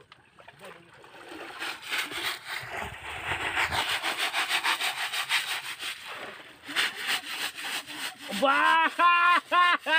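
Quick, even scraping or rubbing strokes for several seconds, then a person's voice calling out near the end.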